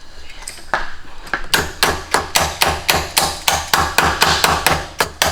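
A hammer striking in a fast, even rhythm of about five blows a second. It starts with a couple of single knocks and settles into steady hammering about a second and a half in.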